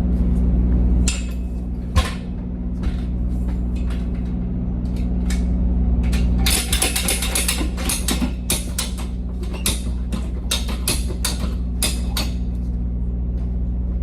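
Rapid metallic clicking and knocking of semi-trailer hardware being worked to secure the load, densest from about six seconds in. Beneath it runs the steady low hum of an idling truck engine.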